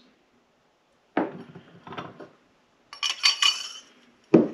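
Brass tubes and round bars clinking and knocking against one another as they are handled and set down on a wooden bench. Several separate knocks start about a second in, with one ringing metallic clink about three seconds in.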